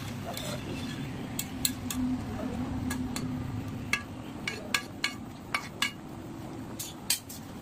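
A spatula stirring a thick pea curry in an aluminium kadai, clinking and scraping against the pan: a dozen or so sharp clinks at irregular intervals over a low, steady rumble.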